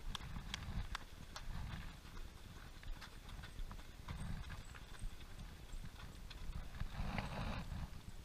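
Running shoes of marathon runners slapping the asphalt as they pass, a quick irregular patter of footfalls over a low rumble.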